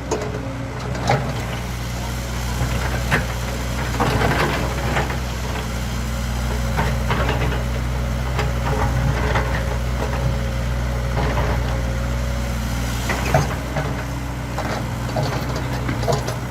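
Excavator's diesel engine running steadily with a low drone, with scattered knocks and clanks from the machine at work.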